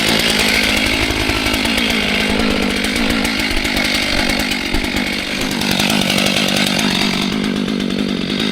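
Two-stroke chainsaw running at high revs, its engine pitch dipping and recovering.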